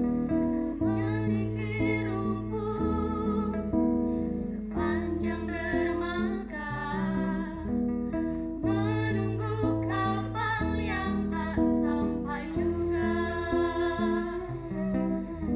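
Acoustic guitar accompanying voices singing a slow melody in held notes.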